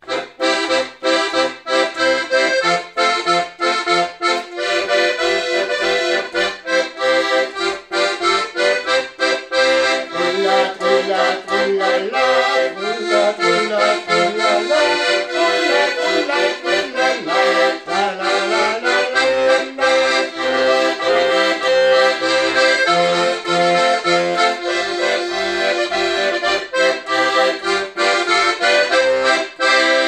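Accordion played solo: a tune on the treble keys over a steady, rhythmic accompaniment of left-hand bass and chord buttons.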